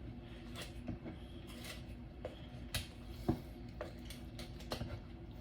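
Scissors cutting into a raw turkey's bones and skin, giving a few faint, irregular snips and clicks over a faint steady hum.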